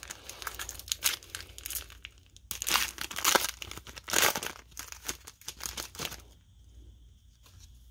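Wrapper of a Panini NASCAR trading card pack crinkling and tearing as it is opened, in a series of rustles that are loudest about three to four seconds in and die away to quiet near the end.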